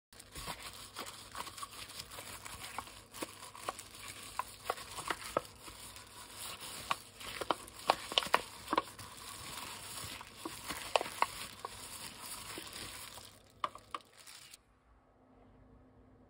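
A disposable plastic glove crinkling and rustling against a paper cup as a gloved hand rubs oil around the inside of the cup, with many sharp crackles. It stops about a second and a half before the end.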